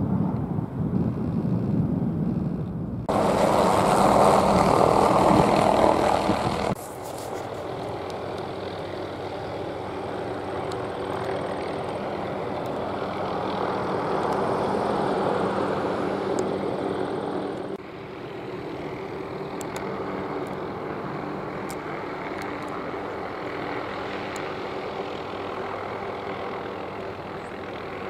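Hughes 500E helicopter flying and hovering, its rotor and turbine engine running steadily with a few steady tones. A louder rushing stretch comes about three seconds in and stops suddenly about seven seconds in, and the sound shifts abruptly again about eighteen seconds in.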